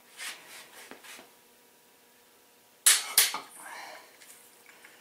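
Socket and extension being worked on a connecting rod bolt: light metal scraping, then two sharp metal clicks about a third of a second apart, followed by brief rubbing.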